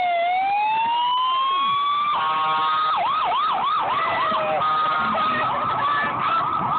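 Fire engine siren going by: a slow wail that falls and then rises again, a short steady horn blast about two seconds in, then a fast yelp of quick rising-and-falling sweeps.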